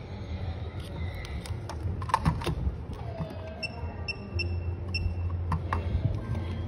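Light plastic clicks and taps of a phone display and its flex-cable connector being handled and plugged into a screen tester, the sharpest pair about two seconds in, over a steady low hum. A few short high beeps come near the middle.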